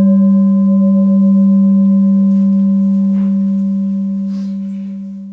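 Singing bowl ringing after a single strike, a low steady tone with fainter higher overtones, slowly fading out near the end.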